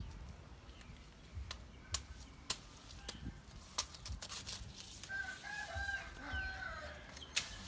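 A rooster crows once about five seconds in, one long call lasting about a second and a half. Several sharp clicks and knocks come and go throughout and are louder than the crow.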